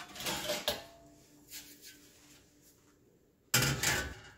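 Metal scraping and clinking as an oven's wire rack and a speckled enamel roasting pan are handled. About three and a half seconds in comes a sudden louder scrape and clatter as the pan is set onto the rack, fading within about half a second.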